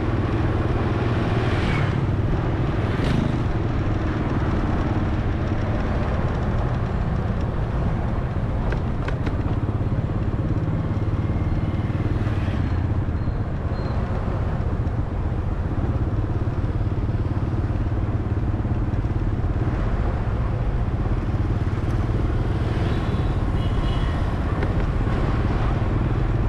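Steady engine and road-traffic noise: a low engine hum that holds constant, under a continuous rush of sound.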